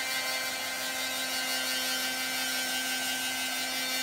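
Handheld blow dryer running steadily: a constant motor whine over the hiss of blown air.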